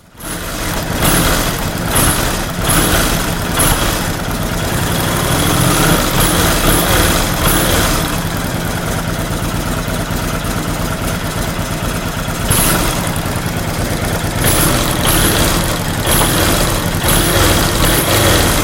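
Kawasaki Vulcan VN750/VN800 V-twin engine running, rising and falling in loudness several times, with sharp irregular noises over it: the engine knock these Vulcans are known for.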